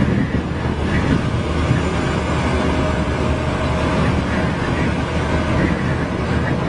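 Steady wind and road noise from a vehicle travelling at motorway speed in a strong crosswind, with a low engine drone underneath.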